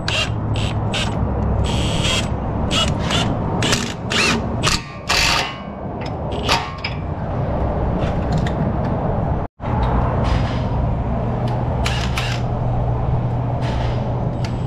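Cordless Milwaukee impact wrench hammering in a run of short bursts, running down and tightening the sway bar link nut while the stud is held with a wrench. The sound drops out for a moment about halfway, then a steady low hum and more bursts of the impact follow.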